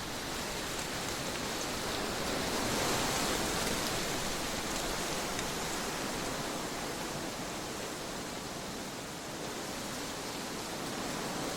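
Trade winds blowing steadily, a continuous rushing noise that swells slightly about three seconds in and eases a little near nine seconds.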